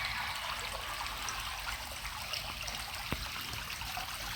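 Small stream running and trickling steadily, with a single soft tap about three seconds in.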